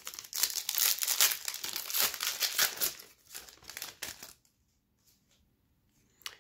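Plastic wrapper of a Topps Pro Debut baseball card pack crinkling as it is pulled open and peeled off the cards, for about four seconds. Then it goes nearly quiet, with a short click near the end.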